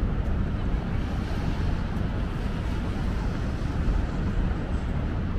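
Steady city street noise in the rain: a low traffic rumble under an even hiss, with no single sound standing out.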